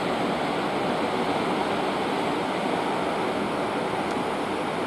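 Steady rushing of churned sea water in a cruise ship's wake behind the stern.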